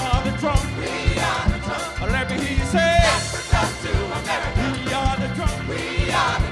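Live band music with a steady, evenly spaced drum beat under singing voices.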